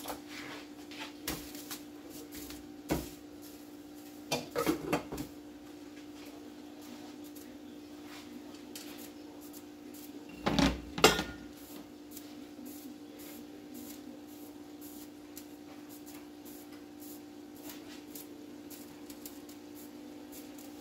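Chicken pieces frying in butter in a skillet, giving a faint, scattered crackling sizzle over a steady hum. A few knocks and clatters from kitchen items being handled, the loudest a pair of knocks about ten to eleven seconds in.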